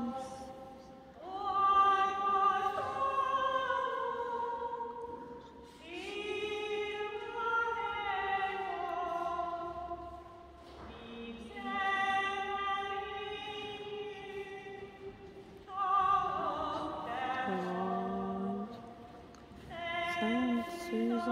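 A slow Marian hymn sung in long held notes, in about five phrases with short pauses between them, ringing in the echo of a large church.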